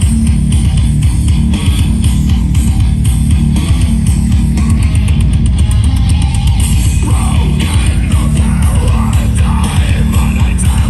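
Loud rock music with electric guitar and heavy bass played through a large JBL loudspeaker sound system; a wavering lead melody comes in about seven seconds in.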